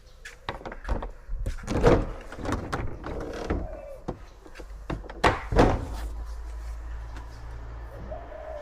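A string of sharp knocks and thumps, the loudest about two seconds in and two more close together about five and a half seconds in, followed by a steady low hum.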